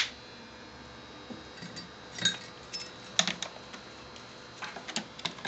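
A young crow's beak and claws making irregular light taps and clicks on wood, some in quick clusters of two or three, the sharpest right at the start.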